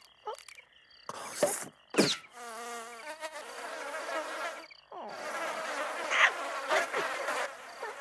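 Cartoon sound effect of a small flying insect buzzing around, with a wavering buzz and a few quick swooshing sweeps.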